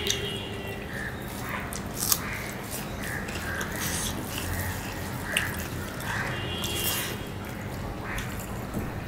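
Close-miked eating sounds: wet chewing and lip smacks, and fingers squishing rice mixed with curry on plates, with a few sharp clicks scattered through.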